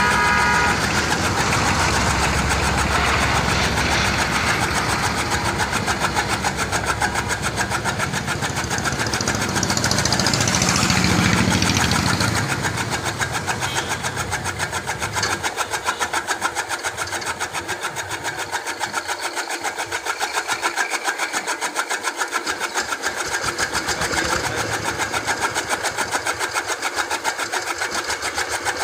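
Motor-driven straw chopper (chaff cutter) running with a fast, steady, rhythmic mechanical clatter; the sound is heavier and fuller for the first half and turns lighter about halfway through.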